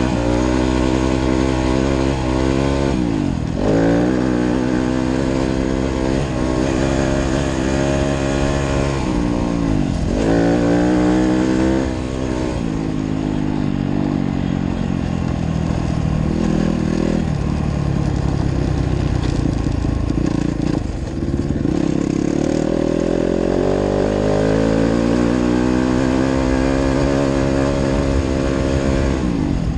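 Yamaha dirt bike engine heard close up from the bike, pulling hard through the gears: the pitch climbs under throttle and drops sharply at each gear change, several times over.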